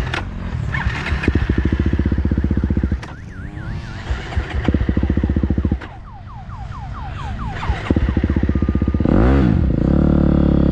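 KTM motocross bike engine heard from the rider's helmet, pulling hard on the throttle. About three seconds in the throttle closes and the engine drops off for a couple of seconds. It then opens up again, running loudest and hardest near the end with a quick change in pitch.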